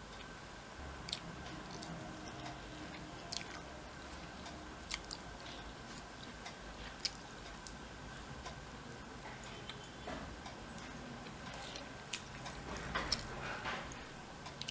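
A person chewing food with scattered small wet clicks and smacks, with a denser run of clicks near the end.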